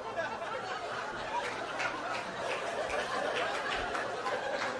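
Audience laughing steadily.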